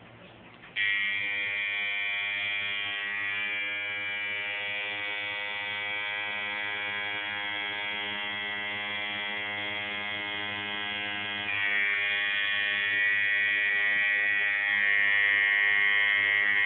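Electric tattoo machine buzzing steadily. It starts up about a second in and grows louder about two-thirds of the way through.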